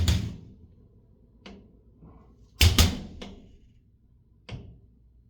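Heavy thumps in the building structure: one at the start and a louder double thump a little under three seconds in, with lighter knocks between and after, heavy enough to be felt.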